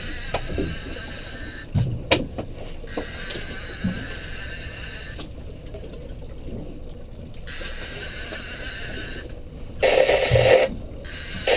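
Small fishing boat under way, its motor running steadily with water and wind noise, a few sharp knocks about two seconds in and a louder rush of noise near the end.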